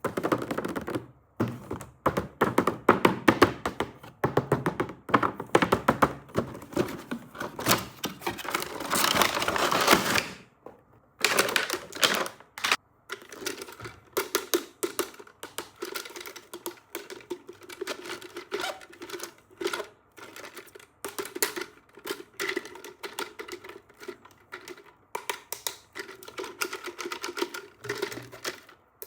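Toy packaging being handled and opened: dense crinkling and rustling with many sharp clicks for about ten seconds, then a long run of quick clicks and taps over a faint steady tone.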